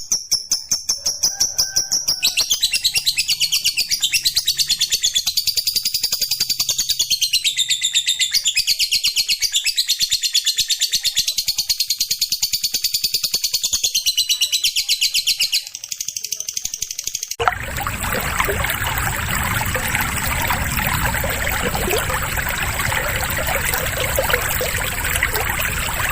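Lovebird singing a long 'ngekek': a very fast, continuous rattling trill that rises and falls in pitch. About 17 s in it cuts abruptly to a harsher, noisier passage of bird chatter.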